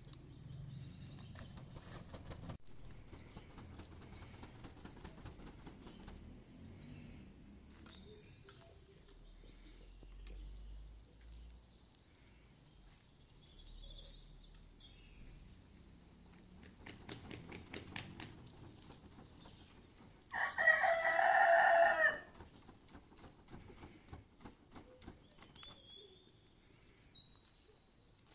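A rooster crowing once, loud and lasting about a second and a half, about three quarters of the way through, over faint chirping of small birds.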